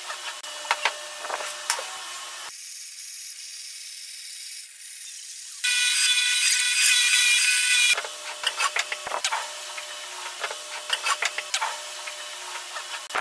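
Sharp clicks and knocks of wooden boards being handled on a bench. About six seconds in, a bench-mounted spindle sander runs with a steady whine for a couple of seconds as a pine board is pressed against its sanding drum. It cuts off suddenly, and the clicking and knocking of wood resumes.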